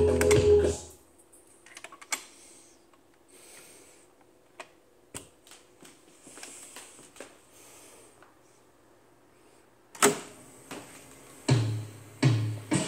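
Music from a Panasonic SE9000 console stereo cuts off about a second in. Then mostly quiet, with scattered clicks and taps as the console's push buttons and controls are worked, and a sharp click about ten seconds in. Music with a strong bass starts playing again near the end.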